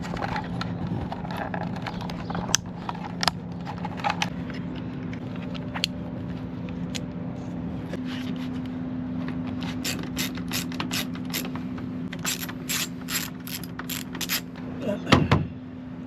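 Ratcheting clicks as small screws are driven in to fasten a taillight's blind spot sensor carrier, coming in a quick run of about four or five clicks a second near the end. A steady low hum runs underneath.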